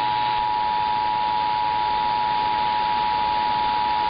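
Emergency Alert System two-tone attention signal (853 and 960 Hz sounded together), held as one steady, unbroken tone over a radio broadcast with a constant hiss beneath. It is the alert tone that precedes the required monthly test message.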